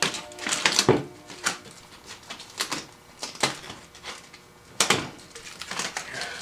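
Sharp crackles and crinkling of 3M Air Cast vinyl wrap film being handled and pressed into place around a plastic ATV fender, coming irregularly about once a second with short quiet gaps.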